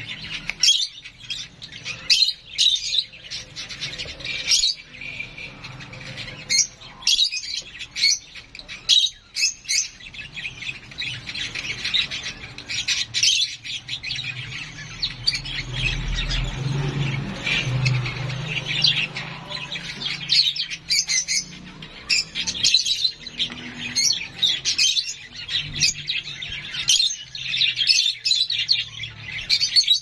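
Young hand-reared lovebird chick squawking and chirping over and over in short, sharp calls, the begging calls of a chick waiting to be fed. About halfway through there is a low rumbling noise.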